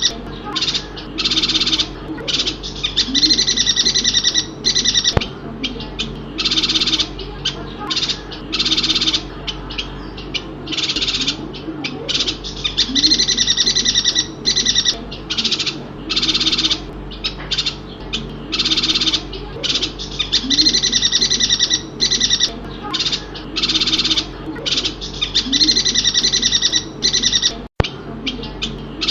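Yuhina from Kalimantan (Borneo) calling: quick, high chattering phrases in repeated bursts, each about half a second to a second long, with short gaps between them. A lower, short rising call repeats every couple of seconds underneath.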